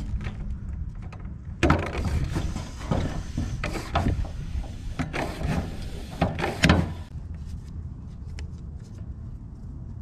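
Floor-standing bicycle pump worked by hand in a run of quick strokes, each a short rush of air. The strokes force air through the fuel line into a Lectron carburettor's float bowl to push out the gasoline and clear the clog that keeps the bike from starting. They begin about one and a half seconds in and stop about seven seconds in, over a low steady rumble.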